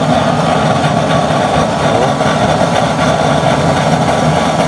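Forced-air used-oil stove burning at full strength through a no-weld 3/4" × 1/2" coupling-reducer nozzle, with a blue flame: a steady, loud rush of flame and blower air with a low hum underneath.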